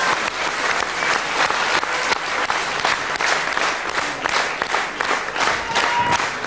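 Audience applauding: many hands clapping together, steadily.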